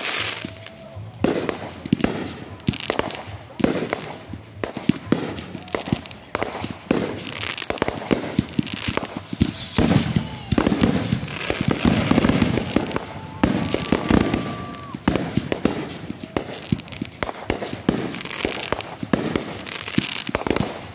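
Consumer fireworks going off in rapid, irregular succession: many bangs, pops and crackles as shots launch and burst overhead. A falling whistle comes about ten seconds in.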